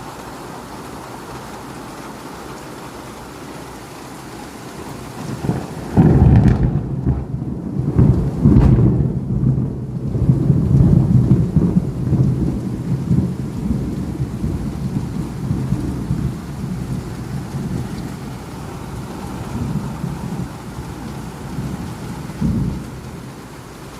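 Steady rain falling, then about six seconds in a loud thunderclap breaks into a long rolling rumble that swells several times and fades over about ten seconds. A shorter rumble of thunder comes near the end.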